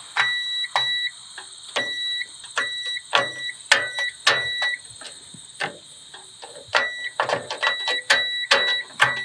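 A continuity tester beeping in short, on-off tones as its probe tips click and scrape against metal terminals. The beeps come in two runs with a gap of about two seconds between them. Each beep means a closed circuit: the ground lugs connect through the DIN rail to the chassis.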